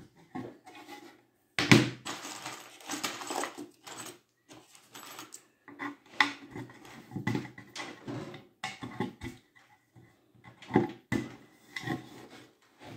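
Irregular clicks and knocks of wooden dowels being pushed into the drilled edge of a pine bookcase side panel, with the board knocking and shifting on the tabletop. A louder knock and a rustle of handling come about two seconds in.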